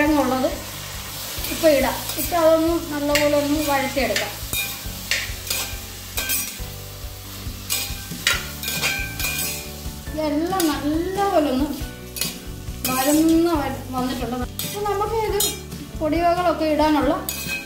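A slotted metal spoon stirs and scrapes through shallots, onion and potato cubes sautéing in hot coconut oil in an uruli, with repeated clicks and scrapes of metal on the pot over a steady sizzle. A sung melody sounds in the background about two seconds in and again from about ten seconds on.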